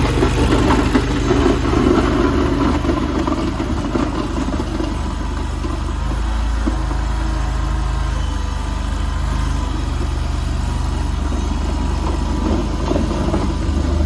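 The 739cc engine of an AGT LRT23 stand-on mini skid steer running steadily, its pitch shifting slightly a few times.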